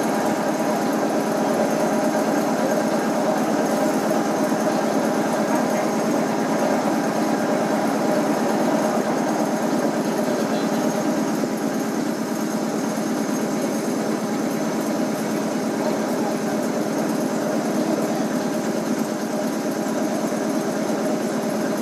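Stationary electric commuter train humming steadily at the platform, a mechanical whine made of several steady tones that holds an even level throughout.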